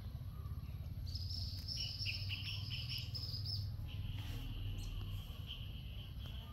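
Small birds chirping high in the background, a quick pulsing trill from about a second in, then a steadier, lower chirping from about four seconds, over a low steady rumble.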